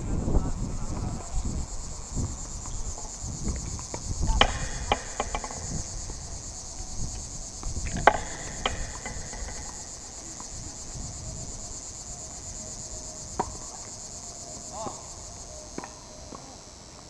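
Insects buzzing steadily at a high pitch, with a few sharp knocks of a tennis ball struck and bouncing, the clearest about four and eight seconds in. A low rumble runs under the first few seconds.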